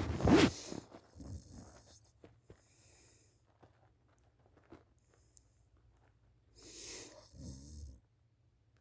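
A sleeping person snoring: a loud snort in the first second, a few softer breaths, then near the end a breath followed by a low, rattling snore.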